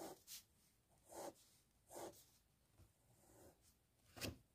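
Faint scratching of a pen writing on paper, in a few short strokes.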